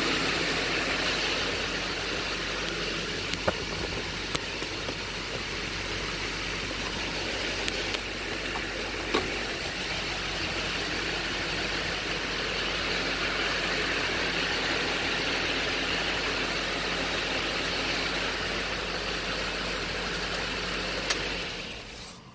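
2007 Chevy Silverado 2500HD's engine idling steadily, heard from inside the cab, with a few light clicks; the engine is shut off just before the end.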